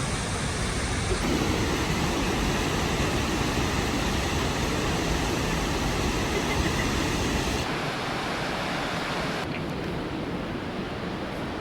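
Waterfall rushing: a steady roar of falling water, thinning in the lowest range about eight seconds in.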